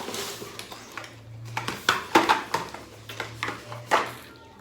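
Pringles tubes being handled and set down: a run of light, irregular knocks and clatters, over a faint low hum.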